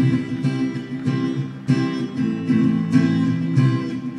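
Acoustic guitar strumming chords in a steady rhythm: the instrumental introduction to a children's song, before the singing comes in.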